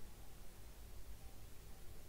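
Faint room tone: a steady hiss with a low hum underneath and no distinct events.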